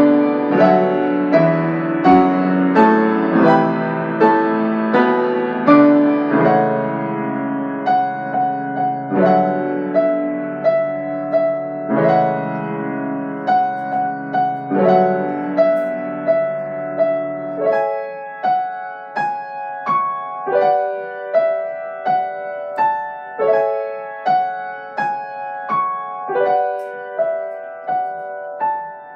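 Solo piano music: struck notes in a steady, even pulse over low bass notes. About eighteen seconds in, the bass drops away and the piece goes on in the middle and upper register alone.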